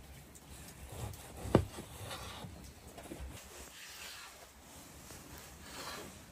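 Chef's knife slicing through raw fat on a bamboo cutting tray. One sharp knock of the blade on the board about a second and a half in, with soft slicing and scraping sounds around it.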